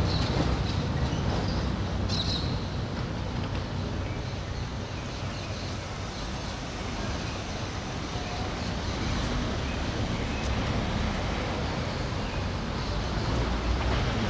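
City street traffic noise: a steady low rumble of passing vehicles that fades over the first few seconds and builds again near the end, with a brief high-pitched sound about two seconds in.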